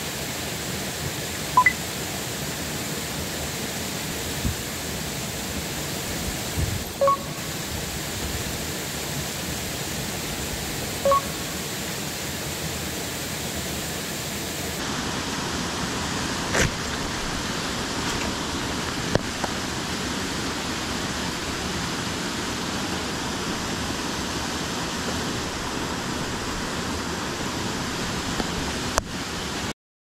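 Steady rush of water spilling over a small concrete weir into a creek pool, with a few brief high peeps and a light click or two on top. The rush cuts off suddenly just before the end.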